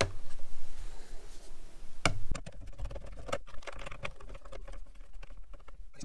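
Small stainless screw with a rubber washer being fitted and turned by screwdriver into a rivnut on the plastic fairing bracket. A sharp click about two seconds in, then a quick run of small plastic and metal ticks and taps.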